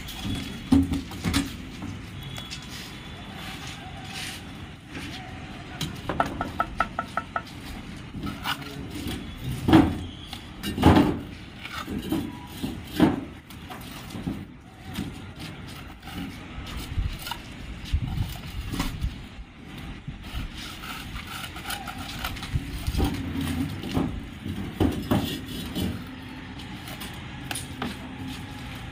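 Building-site sounds: scattered knocks and bangs, the loudest two close together near the middle, over a steady background noise.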